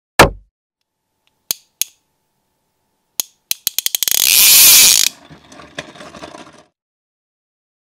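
Intro sound effects: a falling swoosh, two single clicks, then a run of clicks that speeds up into a loud ratchet-like whirr lasting about a second, tailing off into softer rattling.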